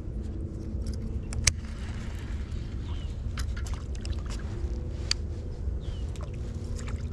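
Scattered sharp clicks and taps from fishing tackle being handled as a lure is rigged and a baitcasting rod and reel is cast, the loudest click about one and a half seconds in, over a steady low rumble.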